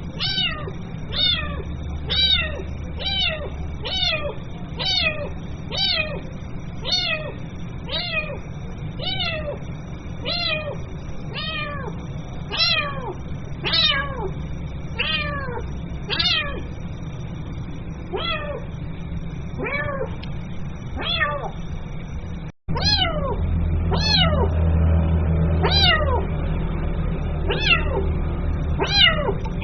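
Kitten meowing over and over, calling for its mother: high calls about one a second, each falling in pitch. After a brief dropout about two-thirds of the way in, the calls come more slowly over a low hum.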